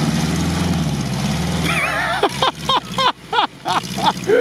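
ZAZ-968 Zaporozhets' air-cooled V4 running under load as the car drives over muddy ground, its drone dropping away after about two seconds. A quick run of short high-pitched sliding calls follows, about five a second.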